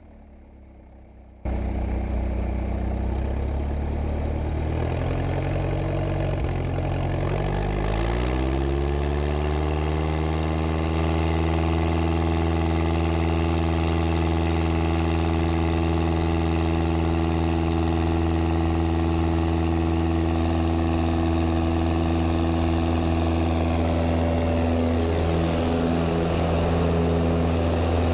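Piper Cherokee's engine and propeller heard from inside the cabin, cutting in abruptly after a quiet second and a half, rising in pitch over several seconds as it comes up to full takeoff power, then running steadily at high power through the climb-out.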